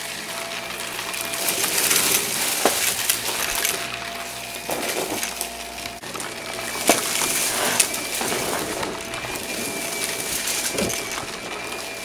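Shark vacuum cleaner running over carpet, its motor giving a steady whine, with scattered sharp clicks and rattles as confetti is sucked up into the dust cup.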